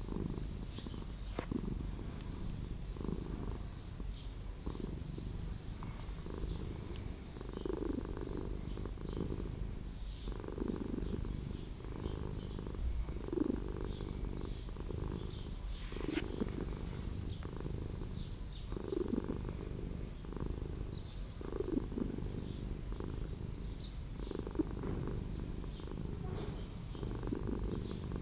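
Black-and-white cat purring steadily while being stroked, the low rumble swelling and easing every couple of seconds.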